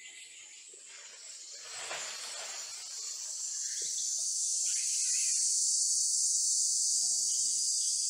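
Insects droning in forest: a high, steady hiss that swells from about two seconds in and then holds loud.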